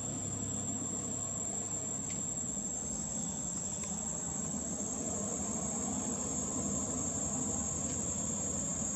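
Forest insects making a steady high-pitched drone, over a low rumbling background.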